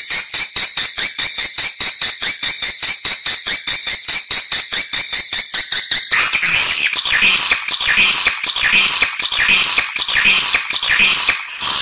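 Edible-nest swiftlet calls played as a nest-house lure: fast, even twittering chirps, about eight a second, changing about six seconds in to a slower series of falling chirps.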